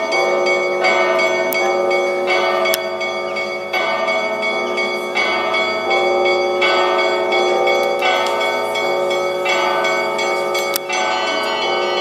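Russian Orthodox monastery bells ringing a festal peal. Several bells of different pitch are struck in a repeating pattern, a fresh set of strokes about every second and a half, their tones ringing on and overlapping.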